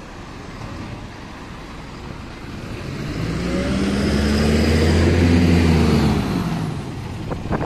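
City bus engine accelerating as the bus pulls away and drives past. The engine note climbs and grows louder from about three seconds in, is loudest around five seconds, then falls away as the bus moves off.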